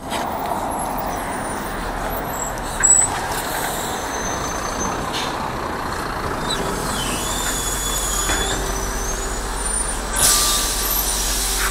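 A city bus pulling into a stop with its air brakes: steady engine and road noise, a short sharp air-brake hiss about three seconds in, thin high squeals in the middle, and another brief hiss near the end.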